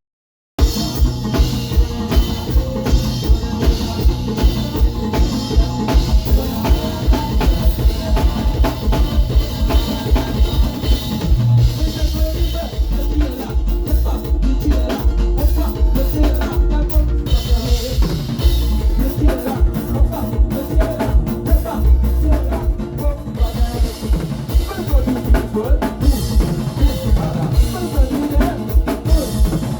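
A drum kit played in a steady groove, kick drum and snare with rimshots, about two strong hits a second, over pitched music with a bass line.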